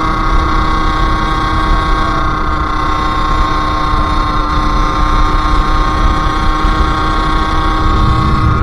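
Sherco SM-R 50 two-stroke moped engine running on the move, holding a fairly steady note, with a heavy low rumble of wind on the microphone underneath.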